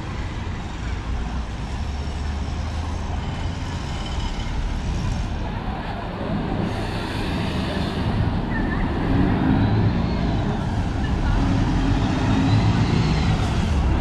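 Road traffic on a busy city avenue, a steady low engine rumble under tyre noise. It grows louder through the second half as a city bus draws close alongside.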